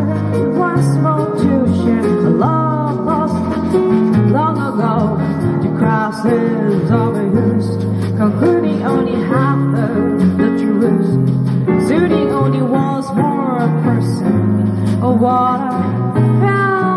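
A live band playing a song: strummed acoustic guitar over low sustained notes, with a lead melody that slides and bends in pitch.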